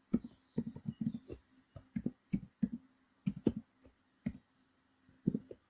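Typing on a computer keyboard: a run of irregular key clicks that thins out after about four seconds, with a couple of last taps near the end.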